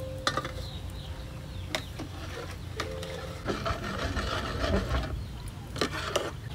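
An aluminium cooking pot set down on a wok, then a metal ladle stirring coconut milk and durian inside it. A few sharp clinks of ladle on pot, with sloshing in the middle.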